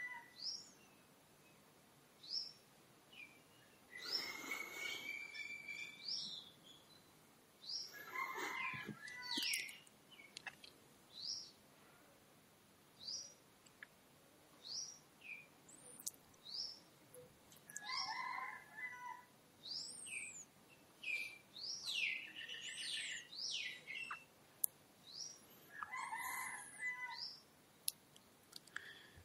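Faint birdsong. One bird repeats a short high chirp every second or two, and other birds give fuller calls now and then.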